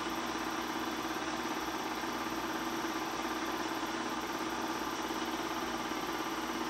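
Bell & Howell 253-A 8mm film projector running, its motor and film mechanism giving a steady, even hum.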